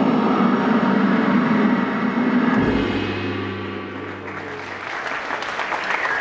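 Stage show music that gives way, about two and a half seconds in, to a single deep ringing stroke that holds for about two seconds. Audience applause builds over the last second or two.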